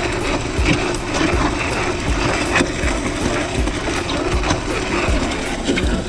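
MudMixer electric concrete mixer running, its auger pushing wet concrete down the chute and into a cardboard pier form tube: a steady motor drone with a dull thump about every two-thirds of a second.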